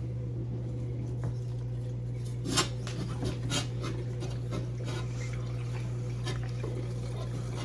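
Light knocks and rubs from a glass refrigerator shelf being washed and handled, a few scattered taps over a steady low hum.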